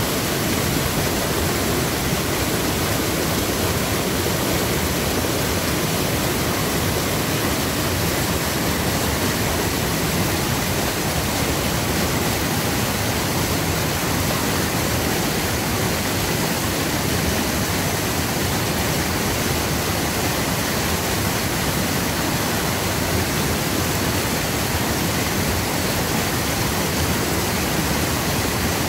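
Small creek running high after heavy rain, its floodwater rushing through rapids: a steady, unbroken wash of water noise.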